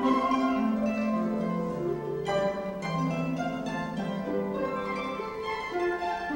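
Flute solo with orchestral accompaniment, with harp and plucked strings prominent under it.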